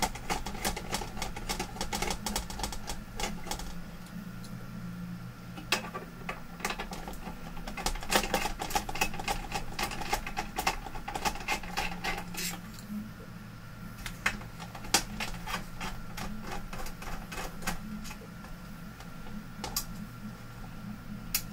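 Irregular small clicks, taps and rattles of hands and a screwdriver working on a monitor's metal chassis and mainboard bracket, with screws being handled and undone. A steady low hum runs underneath.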